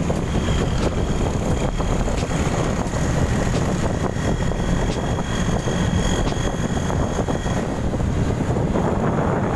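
Rusi Korak 110cc motorcycle under way, its small engine running under a steady rush of wind and road noise.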